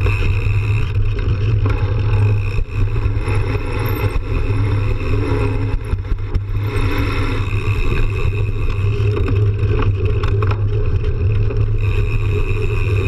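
Mountain bike rolling fast over a dirt trail: a steady low rumble of wind on a bike-mounted camera microphone, with tyre noise and scattered small rattles and knocks as the bike goes over bumps.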